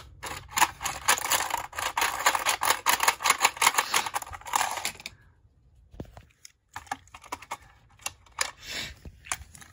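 Rapid plastic clicking from a toy train set's crane mechanism being worked by hand, dense and fast for about five seconds, then slowing to scattered single clicks.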